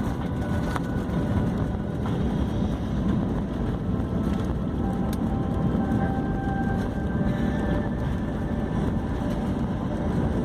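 Steady rumble of engine and airflow noise inside an Airbus A320 airliner's cabin, with a faint steady hum joining about halfway through.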